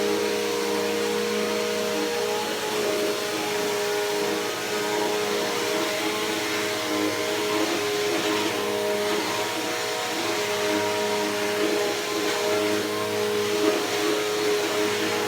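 Bissell PowerForce Helix Turbo upright vacuum running steadily, its motor hum and suction rush rising and falling slightly as it is pushed over the garage carpet.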